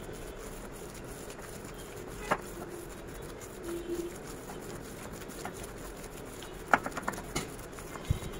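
A hand kneading raw minced meat mixed with finely minced onion and spices in a glass bowl: faint squelching, with a sharp click a couple of seconds in and a quick run of three or four clicks near the end.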